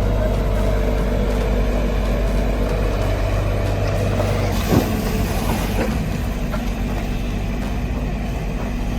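Diesel engine of a JCB 3DX backhoe loader running steadily, with a brief rush of noise about halfway through.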